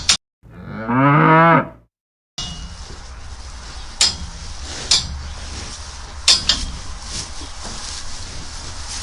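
A cow moos once, a single call about a second and a half long. It is followed by steady background noise with a few sharp clicks.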